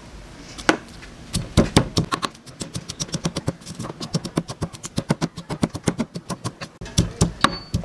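Pestle pounding sliced red onions in a stone mortar, repeated knocks with a few heavy strikes early on, then quicker, lighter strokes several times a second, and a couple of harder strikes near the end.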